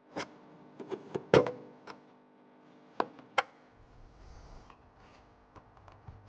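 A series of sharp clicks and knocks as taillight and wiring-connector parts are handled, the loudest about a second and a half in. After about four seconds only a faint low hum remains.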